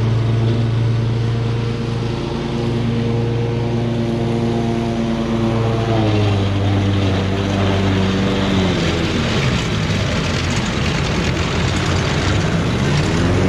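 Gravely 52-inch zero-turn mower's engine running at full throttle with the blades engaged. About six seconds in it pulls down in pitch and runs rough and laboured as the deck hits the standing water and wet grass, bogging down, then climbs back up near the end.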